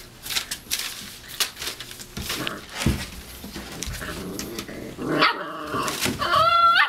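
Five-week-old Boxer puppies play-fighting, with scuffling and rustling on newspaper. Near the end a puppy gives high yips, the last one drawn out and wavering in pitch.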